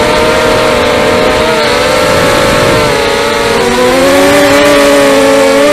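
A 250-size racing quadcopter's motors and propellers whining in flight, a loud steady buzz whose pitch wavers up and down with the throttle.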